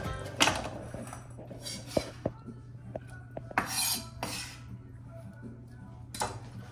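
Kitchen knife scraping and tapping on a wooden cutting board: a few soft swishes and several light, scattered knocks.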